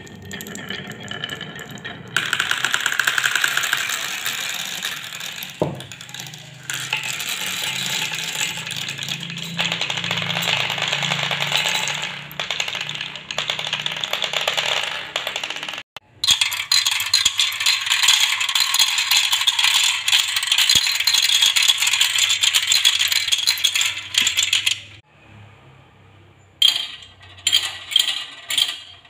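Many small balls rolling and clattering down marble-run tracks: a dense, continuous rattle of balls knocking against the wooden track and against each other. The rattle breaks off and starts again a few times, and near the end turns into separate clicks of plastic marbles running along a plastic spiral track.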